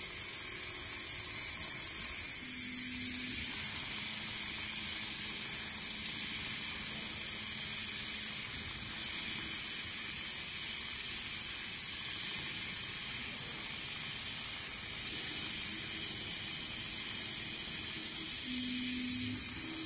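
Richpeace large-format automatic sewing machine running, stitching through a leather panel: a steady high-pitched buzzing hiss.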